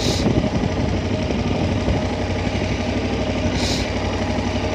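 KTM 1290 Super Adventure's V-twin engine running steadily at low revs as the bike rolls slowly off-road. Two short hisses cut across it, one at the very start and one near the end.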